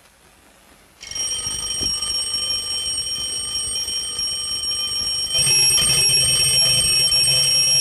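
Mechanical alarm clock with a bell on top ringing its alarm: a continuous metallic ring that starts suddenly about a second in and gets louder about five seconds in.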